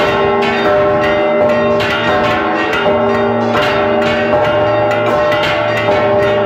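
Large fixed bronze church bells chimed in a rapid repique: a rope-pulled clapper strikes the bell's rim several times a second, each stroke ringing on over the one before, heard loud and close from inside the belfry.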